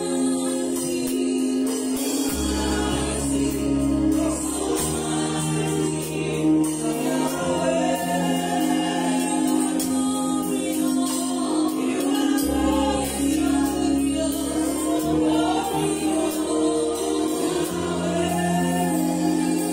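Live gospel worship music: a woman singing lead over sustained electronic-keyboard chords, with a drum kit and ringing cymbals. The bass and chords change every few seconds.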